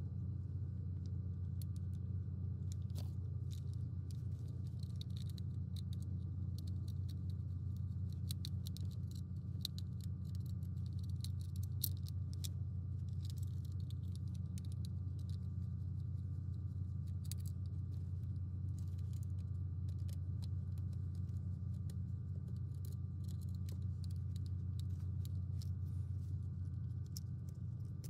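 Many small light clicks and rattles of plastic toy parts being handled and taken apart, over a steady low hum.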